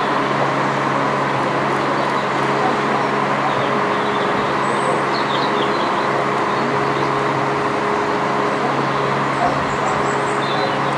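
Steady low engine hum over a wash of traffic-like noise, unchanging, with no distinct chuffing or knocks.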